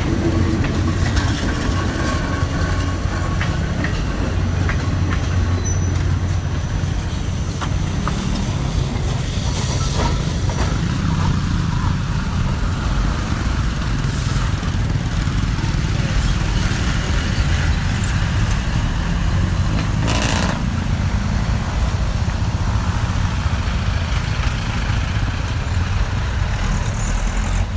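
Train running past on the track: a steady low rumble with scattered wheel clicks, and two brief hissing bursts near the middle.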